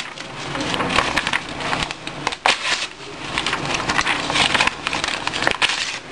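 A sheet of paper being torn apart by hand, ripped again and again in several rasping tears.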